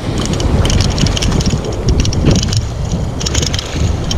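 Wind buffeting the microphone over sloshing surf water, with splashing as a hooked speckled trout thrashes at the surface and is scooped into a landing net.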